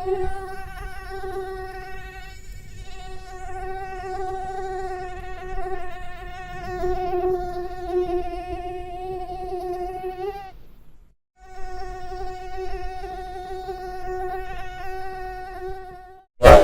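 Mosquito wings whining in flight: a thin, high, steady buzz that wavers slightly in pitch and loudness, mixed in '8D' to seem to move around the listener. It breaks off for a moment about two-thirds of the way through, then resumes. A brief loud burst comes right at the end.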